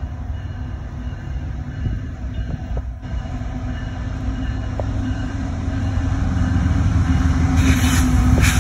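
Approaching CSX freight train's diesel locomotive: a low engine rumble with a steady hum, growing steadily louder.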